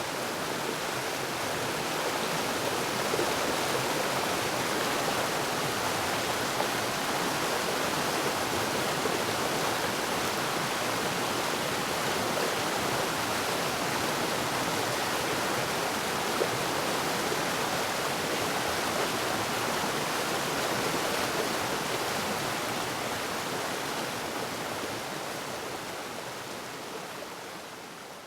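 Waterfall rushing steadily, an even roar of falling water that fades out over the last few seconds.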